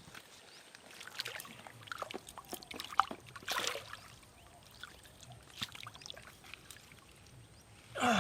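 Irregular small clicks, rustles and trickling water at a pond's edge, with a louder sudden burst near the end.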